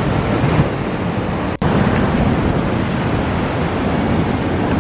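Ocean waves washing on the shore in a steady rush, with wind buffeting the microphone. The sound cuts out for an instant about a second and a half in.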